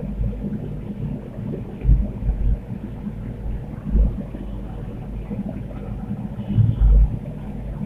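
Steady low rumble of a gas stove burner under a large wok, with a few dull low thumps about two, four and seven seconds in.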